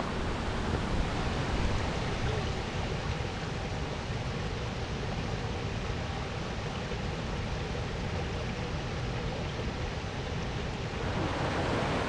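Mountain stream rushing over rocks: a steady wash of water noise, growing a little louder near the end, with some low rumble of wind on the microphone.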